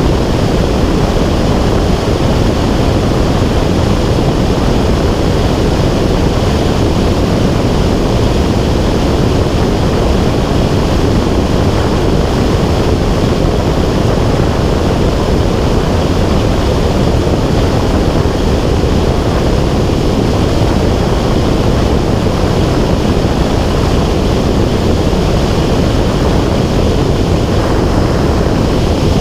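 Loud, steady rushing of airflow on the microphone of a camera carried on a small aircraft in flight, with a constant engine drone under it.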